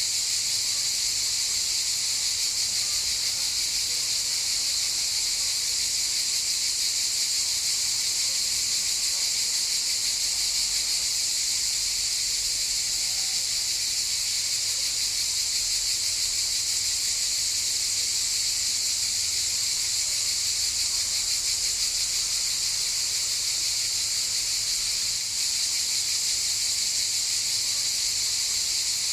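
Cicadas buzzing in a steady, continuous high-pitched chorus.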